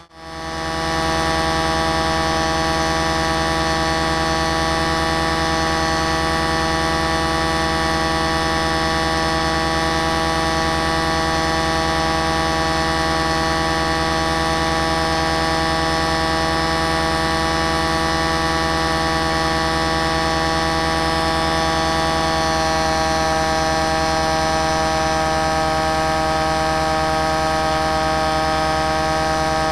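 The motor and propeller of a small aircraft carrying the camera, running at a constant setting: a loud, steady drone with several fixed tones. The sound cuts out for a split second at the very start, then comes straight back.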